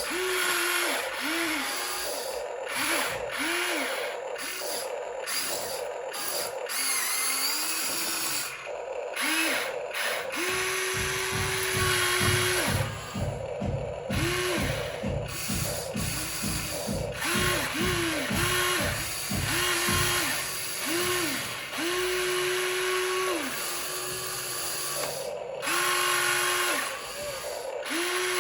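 Small electric motor and gearbox of a radio-controlled model whining in repeated bursts, each spinning up, holding briefly and winding down, with gear clatter underneath; a few bursts are held for a second or two.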